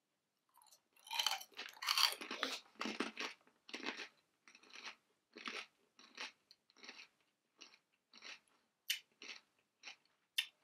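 A person biting into and chewing puffed pork crackling: loud, dense crunching for the first couple of seconds, then a steady run of softer crunching chews about two a second.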